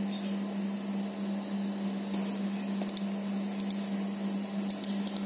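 Computer keyboard keys clicking a few times at scattered intervals over a steady low hum.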